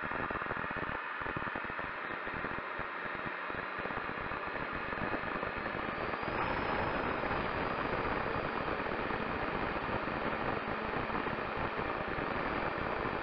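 Model tow plane on its takeoff roll over grass, heard from its own onboard camera: a steady rush of wind and wheel rumble with a faint motor whine slowly rising in pitch. The rush grows louder about six seconds in as the plane gathers speed and lifts off.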